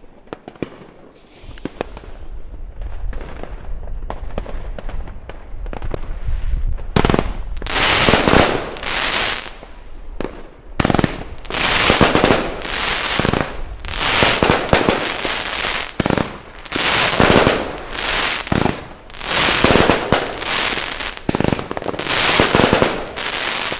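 New Year's Eve fireworks going off in a barrage: low rumbling bangs and scattered cracks at first, then from about seven seconds in loud, dense crackling bursts and bangs that follow one another about every second.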